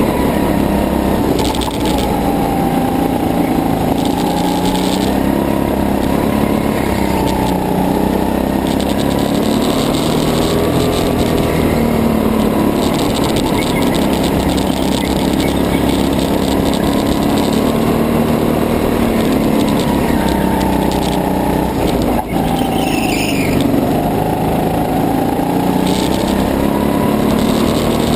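Go-kart engine running hard under the driver, its pitch dipping and climbing again several times as the kart slows and accelerates round the track. A single sharp knock comes about two-thirds of the way through.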